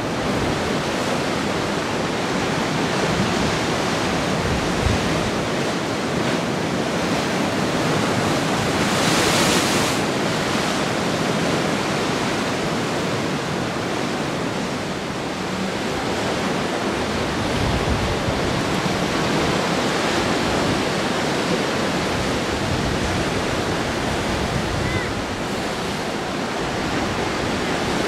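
Heavy ocean surf breaking over a rocky lava shoreline: a continuous rushing wash of waves, with one louder, hissier crash about nine seconds in.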